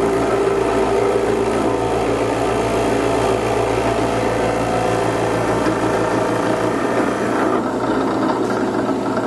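Craftsman 8-inch drill press running steadily with a low motor hum while its bit bores a half-inch-deep hole into a block of wood. The higher-pitched part of the sound drops away about seven and a half seconds in, while the motor keeps running.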